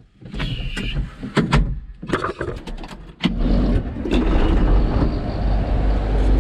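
A few clicks and knocks, then a vehicle engine comes in suddenly about three seconds in and runs with a steady low rumble.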